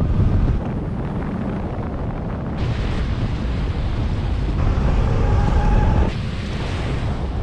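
Wind rushing over the microphone of a moving Zero DS electric motorcycle, with road noise and no engine sound. The rush changes abruptly in tone a few times, and a faint high whine shows briefly just past the middle.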